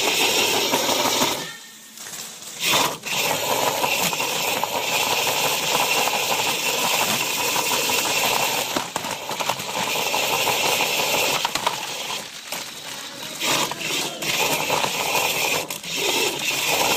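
A small soccer robot's perforated metal frame rattling and clattering as it drives and jolts about, with a steady whine underneath from its drive motors. The noise drops away briefly about two seconds in.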